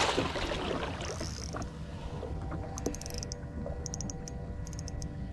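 Steady low rumble with the even hum of a boat motor, and scattered short, sharp clicks through the second half.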